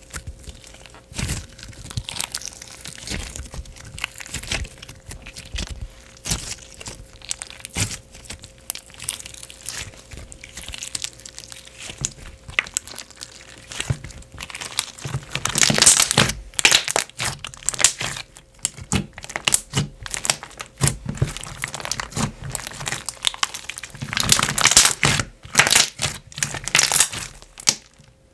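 Slime Obsidian's Bluebubble Cream, a thick and glossy slime with marshmallow foam beads, being squeezed and stretched by hand: a steady run of clicky bubble pops and crackles. The pops come thick and loud in a burst about halfway through and again in a longer burst near the end.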